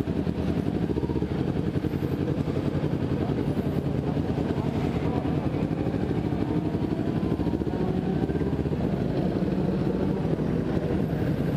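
Kawasaki Ninja 250 FI's parallel-twin engine idling steadily, heard up close.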